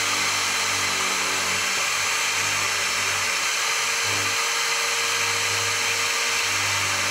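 Bench drill press running steadily as its bit bores into a small carved wooden lure body, drilling the hole for the main belly lead weight.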